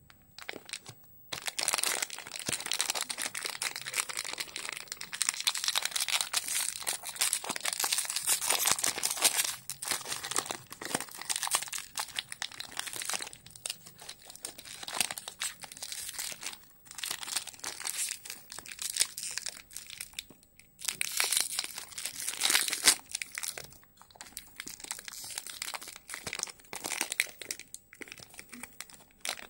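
Foil-lined plastic wrapper of an Orion Choco Pie crinkling as hands tear and peel it open. It comes in irregular stretches of crackling with short pauses between.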